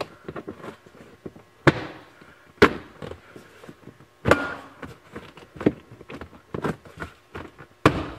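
Hard plastic seat-back panel being pushed and knocked into place by hand, a series of sharp knocks and clicks, about half a dozen loud ones with lighter ticks between, as its push-in Christmas-tree fasteners are pressed into their holes.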